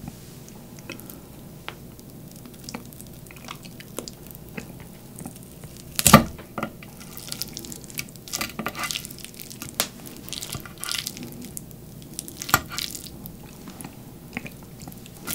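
Close-miked chopsticks working soft food on a plate, picking up kimchi, a slice of smoked pork-belly bacon and fried egg, in a run of small scattered clicks and soft squishy sounds. There is one louder sharp click about six seconds in and another at about twelve and a half seconds.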